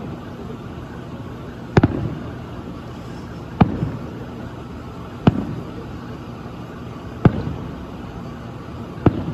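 Distant aerial firework shells bursting: five sharp bangs about two seconds apart, each with a short rumbling tail, over a steady background hiss.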